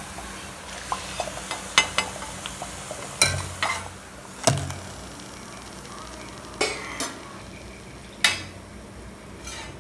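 Steel slotted ladle clinking and scraping against a steel pot in irregular knocks as fried urad dal vadas are moved out of the hot oil into sugar syrup, with faint sizzling between the knocks.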